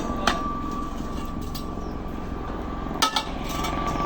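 An engine running steadily at a low rumble with a thin steady whine, while metal tools clink against steel track parts: one sharp clink early on and a few more about three seconds in.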